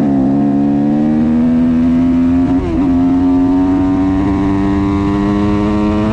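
Yamaha YZ250F motocross bike's engine running under steady throttle while riding, its note slowly climbing, with a brief dip about two and a half seconds in.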